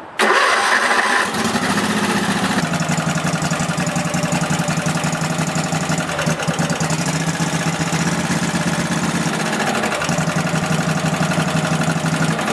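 Kohler V-twin engine of a Husqvarna YTH-180 lawn tractor starting on the electric starter and catching within about a second, then running as the throttle is worked, faltering briefly twice. It is the tractor's fault of starting but dying when throttled up, which is usually related to a carburettor fuel issue.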